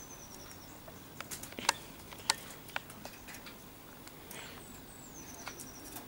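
Domestic canaries chirping: short, very high trills of quick repeated notes at the start and again about four and a half seconds in, with a few sharp clicks in between, the loudest around two seconds in.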